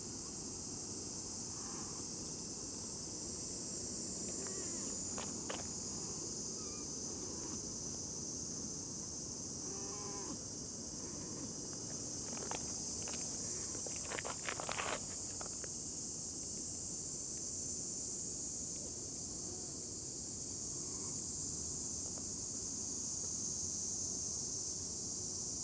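Steady, high-pitched chorus of insects over a low background hiss, with a few faint clicks and taps around the middle.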